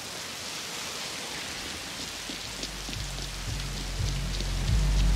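Heavy rain pouring steadily, with scattered drips splashing. About two and a half seconds in, a low, pulsing bass music cue comes in and grows louder.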